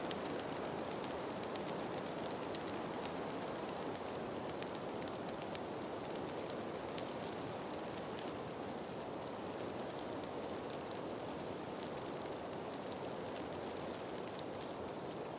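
Steady rain falling, a constant hiss with scattered individual drops ticking through it.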